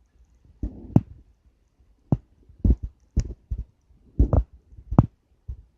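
Campfire wood crackling, with irregular sharp pops and snaps, some of them loud.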